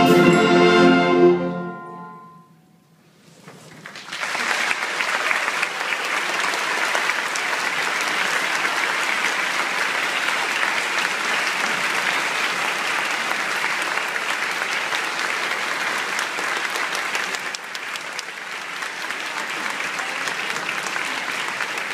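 A concert band's final held chord cuts off about a second in and rings away in the hall; after a short silence the audience breaks into steady applause that carries on, easing slightly near the end.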